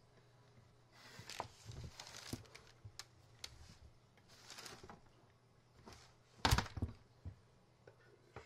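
Wooden parts of a homemade cheese press being handled and adjusted: scattered knocks, clicks and rustling, with one louder thump about six and a half seconds in.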